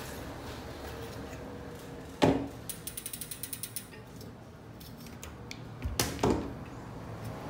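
A sharp metallic knock, then about a second of fast, even ratchet clicking, roughly ten clicks a second, and two more knocks near the end: a bicycle part or tool with a ratcheting mechanism being worked by hand.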